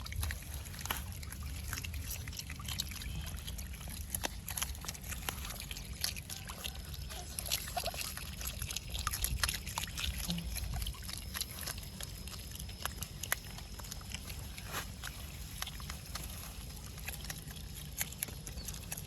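An otter snuffling and moving about in water, with many irregular sharp clicks and small sloshing and trickling sounds.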